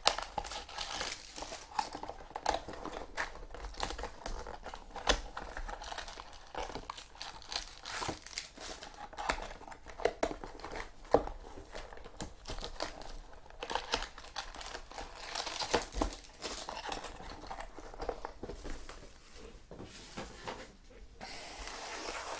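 Foil-wrapped trading-card packs crinkling and cardboard boxes being handled, with many small sharp clicks and taps.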